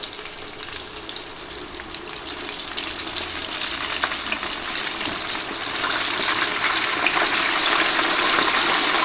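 Flour-dredged chicken wings deep-frying in hot peanut oil in a Masterbuilt turkey fryer: a crackling, bubbling sizzle that grows steadily louder as the wings sink into the oil.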